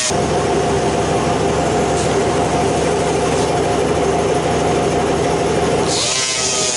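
Power tool running steadily while the TIG welds on an aluminum wheel rim are ground down: a loud, even motor drone with a low hum. It cuts in abruptly at the start and shifts pitch about six seconds in.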